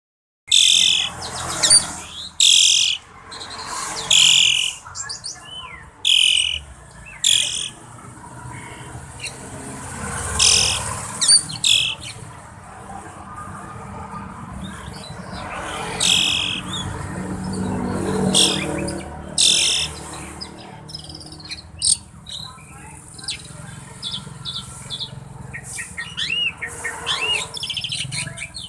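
Jalak (starling) in full song: a long string of loud, harsh, rasping calls with short whistled notes and chatter in between, and looping whistles near the end.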